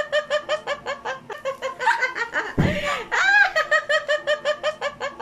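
Laughter in quick rhythmic pulses, with a louder rising-and-falling whoop that comes round again about every four seconds in the same pattern.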